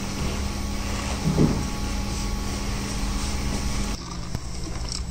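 Steady room noise with a constant low hum and one brief short sound about a second and a half in. About four seconds in it cuts off and gives way to quieter surroundings with a few sharp knocks.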